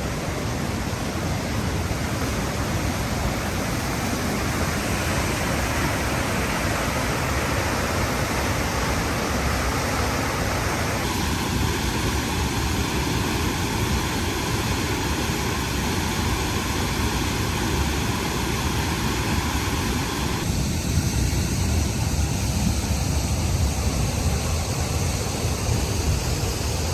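Waterfall in heavy flow after rain, a steady, loud rush of falling water. Its tone shifts abruptly twice, about 11 and 20 seconds in.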